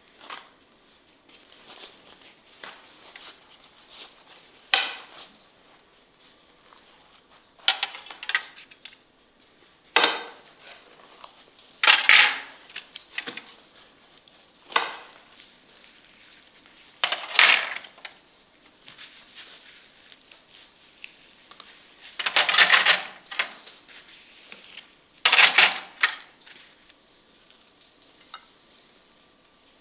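Grilled meat being slid off metal skewers onto lavash on a plate: about eight short scrapes a few seconds apart, metal skewer dragging through meat and bread against the dish.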